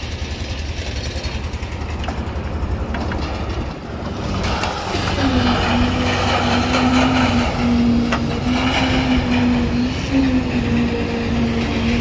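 An engine running steadily with a low pulsing throb. About five seconds in, a steady hum joins it and the sound grows louder.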